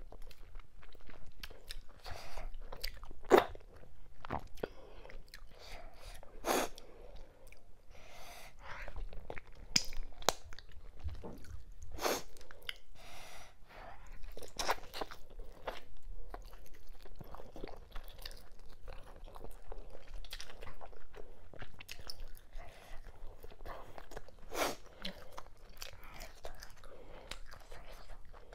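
Close-miked eating: wet chewing, lip smacks and crunching bites at an irregular pace as a person chews mackerel and cow skin with fufu and okra-ogbono soup, eaten by hand.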